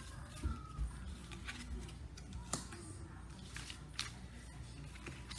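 A deck of tea leaf fortune cards being handled as cards are drawn and laid out: a few scattered sharp clicks and soft taps.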